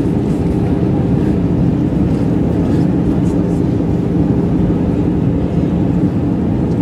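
Steady cabin drone of an Airbus A320-216 in flight, heard inside the cabin at a window seat beside the wing: its CFM56-5B jet engines and the airflow, with a low, even hum holding a couple of steady tones.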